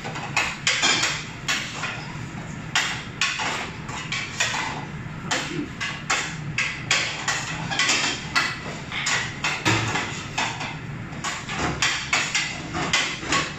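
Metal utensil knocking and scraping against a pan on a gas range in quick, irregular strikes, a few a second.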